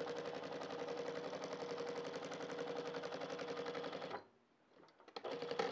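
Sewing machine stitching a zip seam at a fast, steady rate, a rapid even run of needle strokes over a constant motor hum, stopping abruptly about four seconds in. It runs again in a short burst just before the end.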